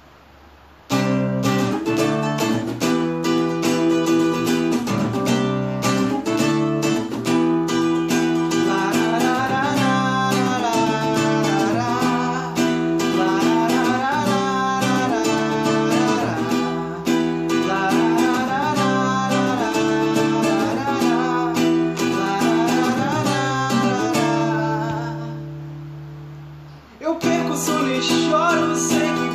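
Acoustic guitar strummed in a steady rhythm, starting about a second in. About three-quarters of the way through, one chord is left ringing and fades away, then the strumming starts again.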